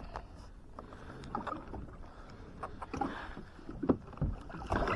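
Sounds of a fishing kayak on the water: water noise against the hull with irregular clicks and knocks from gear being handled, growing busier and louder in the second half.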